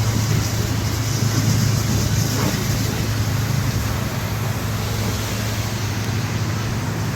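Motorboat engine running at a steady pitch while the boat is under way, with an even rush of water and wind noise over it.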